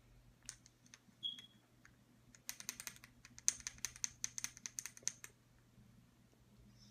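A small spoon clicking and scraping against a container of ground cinnamon. A few single clicks are followed by a quick run of light clicks lasting about three seconds.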